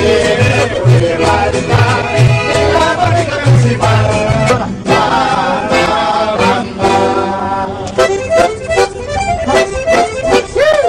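Mariachi band playing: a pulsing bass line from the guitarrón under strummed guitars and a sustained melody line, with the playing turning to shorter, choppier notes about eight seconds in.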